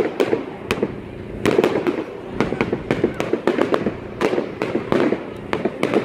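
Fireworks display: aerial shells bursting, with many sharp bangs and crackles at irregular intervals, some coming in quick clusters.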